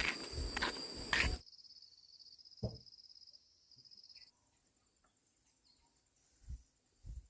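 Insects chirring in steady high trills, over rustling footsteps, for the first second and a half. The sound then drops away suddenly, leaving a faint trill and a single thump, then near quiet.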